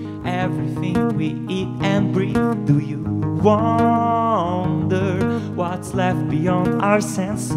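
Steel-string acoustic guitar picked in a slow instrumental passage of an acoustic song, with a few long held notes that waver and fall in pitch.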